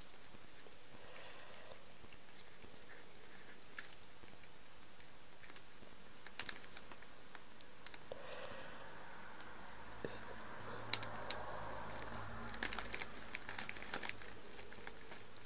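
A cat biting and chewing rose petals: scattered small clicks and crunches, with more of them close together in the second half.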